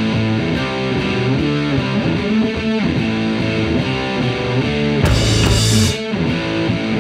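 Intro music: an electric guitar track with a steady beat, and a burst of hiss for about a second, around five seconds in.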